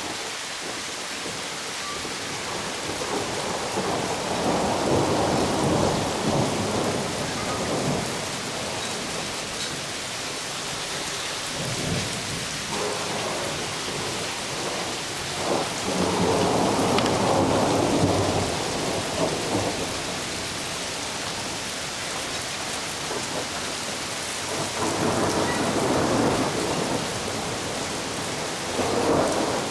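Heavy rain falling steadily, with rolling thunder that swells and fades several times.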